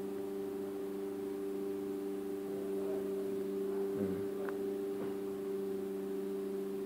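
Steady electrical hum made of several fixed low tones, with a faint short murmur about four seconds in.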